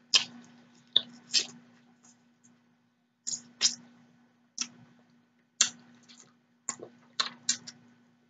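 Close-miked chewing and wet mouth smacks from eating shrimp: about a dozen sharp, irregular clicks, with a faint steady hum underneath.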